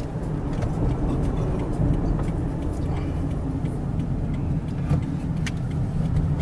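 Steady low rumble of a car on the move, engine and road noise, with a few faint clicks about five seconds in.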